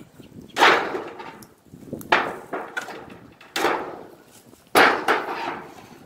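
Knocks and bangs from tearing down an old wood-and-tin shed: four sharp impacts roughly a second and a half apart, each trailing off briefly.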